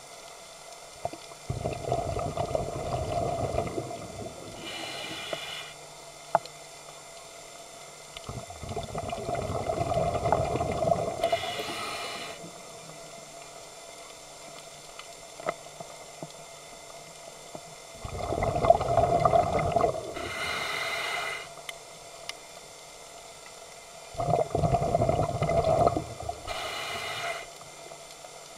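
Scuba diver breathing through a regulator underwater: four slow breaths, each a bubbling burst of exhaled air lasting two to three seconds, followed by a short hiss of inhaling.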